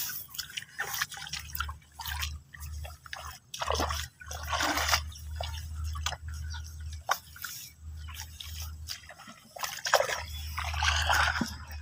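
Shallow water splashing and dripping as hands move through it picking snails, in irregular small splashes and drips.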